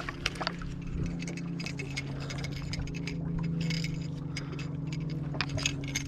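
Boat motor running with a steady low hum while a hooked fish is reeled in, with frequent irregular light clicks and ticks over it.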